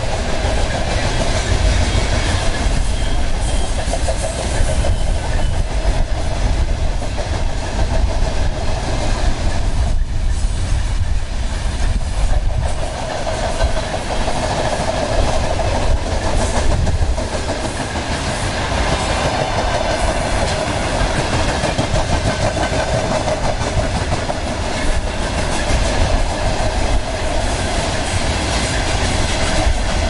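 A freight train's open gondola wagons rolling past close by: a steady rumble with the wheels clattering over the rail joints.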